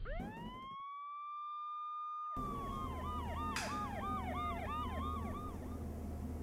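Emergency-vehicle siren: it winds up and holds a steady wail, then about two seconds in it falls away while a fast yelp, about three to four rises a second, takes over. A single click sounds partway through.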